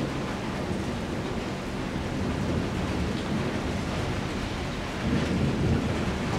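Thunder rumbling over steady rain, swelling louder about five seconds in.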